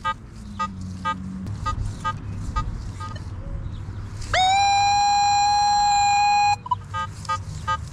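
Nokta Makro Legend metal detector giving short repeated beeps, about three a second, as the coil sweeps a target reading 17–18, just above iron. From about four seconds in comes a loud steady tone that lasts about two seconds and cuts off. The target is a small piece of aluminum can.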